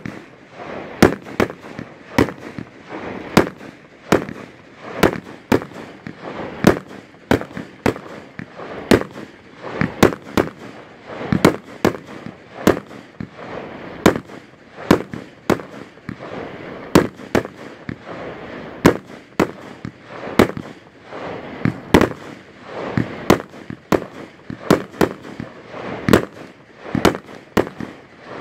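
Aerial fireworks bursting in a rapid, irregular string of sharp bangs, about one or two a second, with continuous crackling noise between the bangs.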